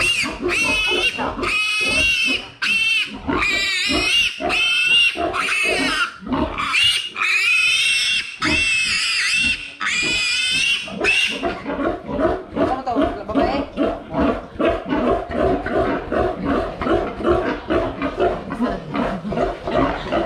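A piglet squealing while it is held by its hind legs for castration. For about eleven seconds come long, piercing, wavering screams, which then give way to a fast run of shorter, lower squeals and grunts, several a second.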